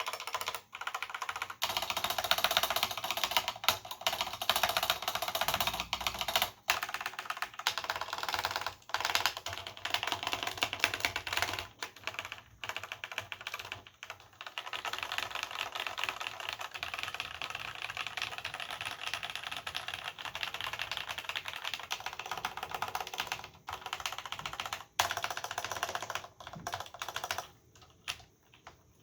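Fast, continuous typing on a vintage Cherry G80-0693 keyboard with Cherry MX Black linear switches and doubleshot keycaps: a dense clatter of keystrokes with a few short pauses. The typing stops about a second and a half before the end.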